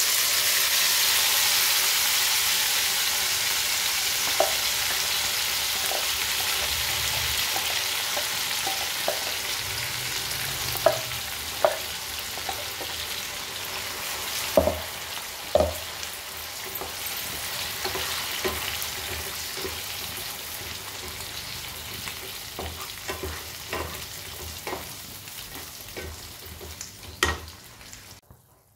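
Ground tomato-tamarind paste hitting hot mustard oil in a kadhai, sizzling hard at first and slowly dying down as it cooks. A wooden spatula stirs and knocks against the pan a dozen or so times.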